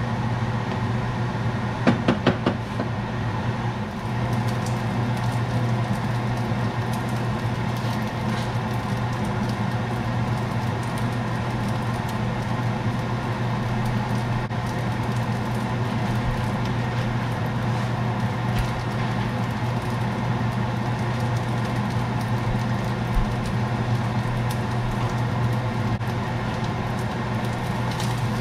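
A steady machine hum with a strong low drone, like a household appliance's motor running, and a quick run of sharp clicks about two seconds in.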